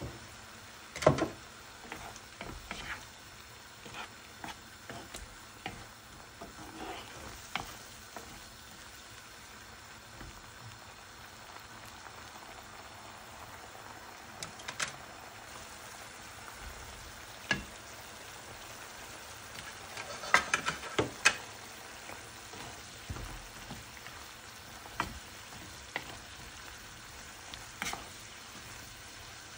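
Beef chunks sizzling in their juices in a frying pan, a steady faint hiss. Scattered sharp knocks and clicks from stirring and handling the pan break in, the loudest about a second in and a cluster about two-thirds of the way through.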